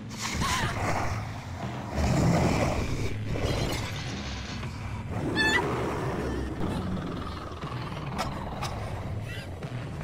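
Horror cartoon sound effects: a monster's low growling and rumbling, with a woman's short, high scream a little past the middle.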